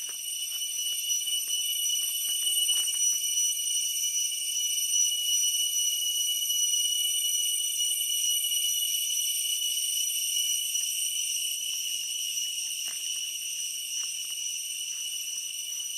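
Insect chorus: a steady high-pitched ringing trill that goes on without a break, with a few faint clicks beneath it.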